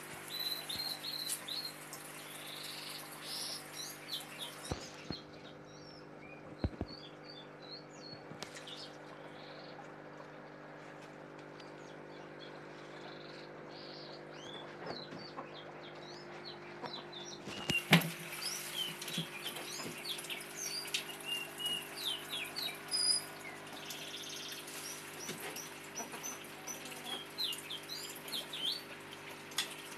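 Small birds chirping over and over in short high notes, over a steady low hum. A sharp knock stands out about 18 seconds in.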